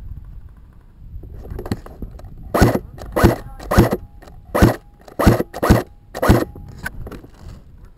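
Footsteps crunching through snow at a walking pace: seven loud crunches about two-thirds of a second apart, starting about two and a half seconds in, after softer rustling.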